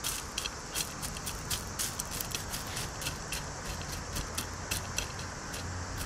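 Expanded clay pebbles clicking and rattling against each other as gloved fingers press them down around a potted plant, many small irregular clicks, over a faint low hum.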